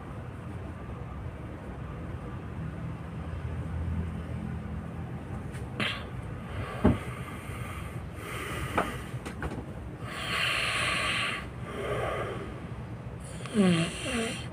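A sleeping person snoring loudly: a low rumbling snore, then sharp clicks, a hissing breath and a short falling sound near the end.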